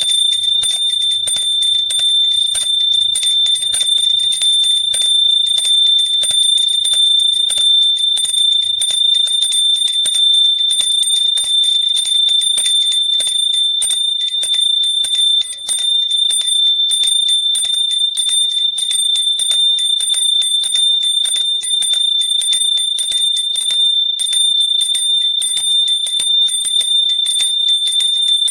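Hand bell shaken continuously, its clapper striking rapidly over one steady high ringing tone. The loudness dips briefly a little past halfway.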